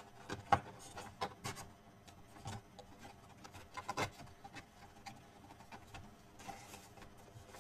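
Cardstock box pieces being handled and lined up: scattered light taps and clicks, with a soft rub of paper sliding over paper near the end.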